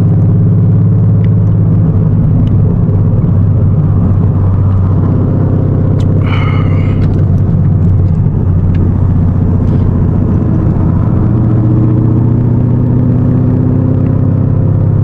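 Ford Mustang GT's 5.0 Coyote V8 running through a loud dump exhaust at steady cruising revs, a steady low drone heard from inside the cabin. The revs rise slightly about eleven seconds in.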